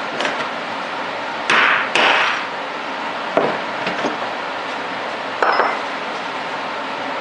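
A pointed steel marking tool striking and scraping against a metal indexing plate blank, marking hole positions: two loud sharp strikes with brief ringing about a second and a half in, then three lighter knocks.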